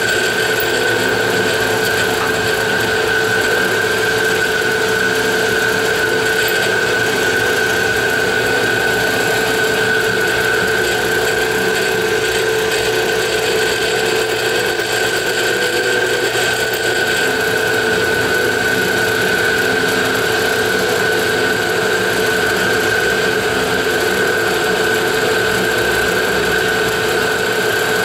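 Precision Matthews milling machine running steadily while an end mill cuts a pocket through a cast-iron G0704 saddle, a steady high whine over a lower hum with the noise of the cut.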